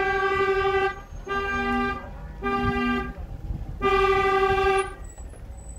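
Car horns honking in about four blasts, each under a second long, with a second, lower-pitched horn sounding along with two of them: the celebratory honking of a send-off convoy.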